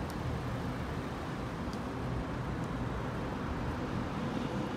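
Steady low rumble of traffic and running car engines around a busy parking area, with no single event standing out.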